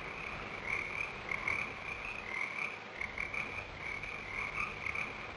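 A steady chorus of frogs croaking.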